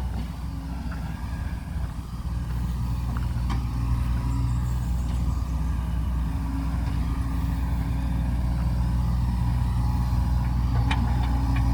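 Backhoe engine running steadily, getting louder about two seconds in, with a couple of sharp knocks.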